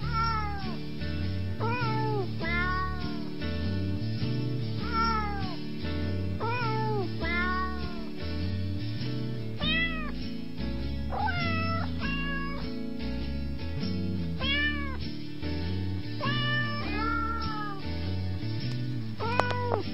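Repeated cat meows, a short rising-and-falling call every second or two, over background music with a steady bass line.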